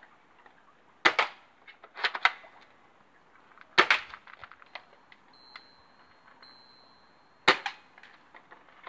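BB rifle firing single shots: sharp snaps about one, four and seven and a half seconds in, with two smaller snaps around two seconds and faint clicks between.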